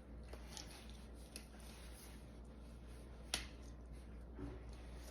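Faint sounds of a knife slicing through steak, with one sharp click about three seconds in and a few lighter ticks.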